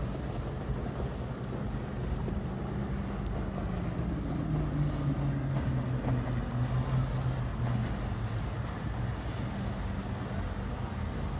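Motorboat engine running past, a steady drone that grows louder about halfway through, dips slightly in pitch, then eases off. Wind on the microphone and low water rumble underneath.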